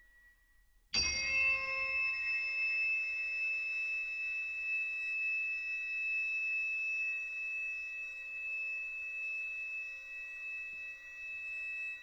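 A single bell-like metallic strike about a second in, then a long ring of several steady overtones that slowly fades: a tone in the soundtrack music.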